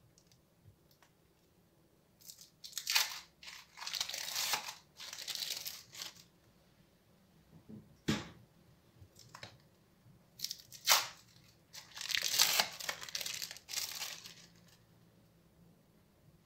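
Plastic wrapping of sliced cheese crinkling and tearing in two spells of rustling bursts as the slices are pulled from it, with a single soft knock between them.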